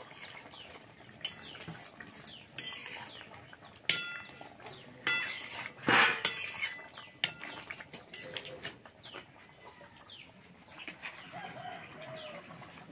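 Long steel spatula stirring fish curry in a metal kadai, scraping and clinking against the pan, with a few sharp ringing clinks about four to six seconds in. Birds chirp in the background.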